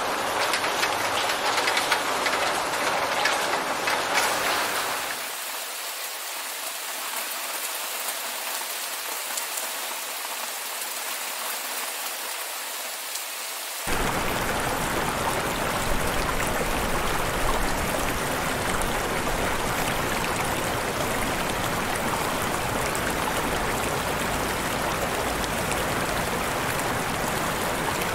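Steady rain. About five seconds in it softens to a thinner, quieter rain. About fourteen seconds in, heavier, fuller rain cuts in suddenly and keeps up.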